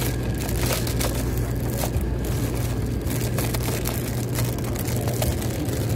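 Taipei Metro C381 steel-wheel rapid-transit train running past the platform edge as it pulls into the station: a steady low hum from the train over wheel-on-rail noise, with scattered light clicks.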